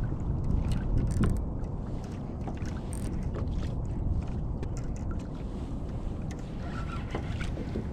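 Wind rumbling on the microphone and water moving against a fishing kayak's hull, steady throughout, with a few small clicks.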